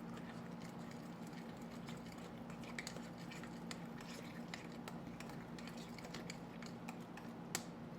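A spoon or spatula stirring a wet crab cake mixture in a bowl: soft squishing with many small light clicks against the bowl, and a sharper click near the end. A steady low hum sits underneath.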